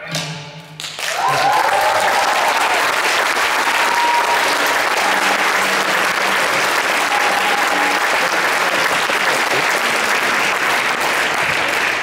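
The last violin note dies away in the first second, then a concert audience bursts into sustained applause, with a few cheers and whoops rising over the clapping.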